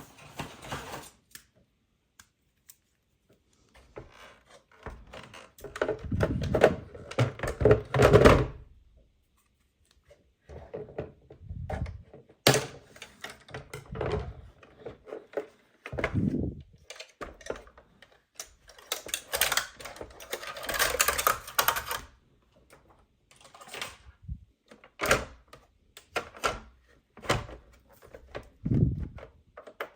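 Hands handling a plastic toy tow truck and its packaging: irregular clicking, rattling and dull thunks in bursts, with short pauses between.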